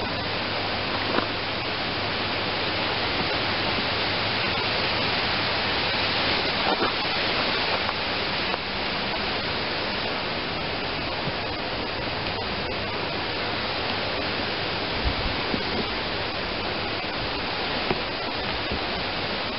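A steady, even hiss like static, with a few faint clicks here and there.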